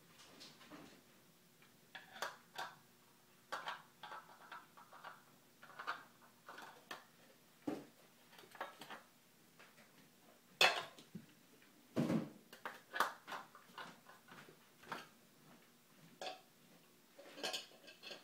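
Plastic cups, jars and a wire whisk handled by a toddler, knocking and clinking together irregularly, with louder clatters about ten and a half and twelve seconds in.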